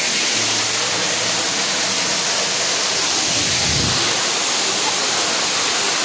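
Steady rushing of a rocky waterfall, an even hiss of falling water with a brief low thump near the middle.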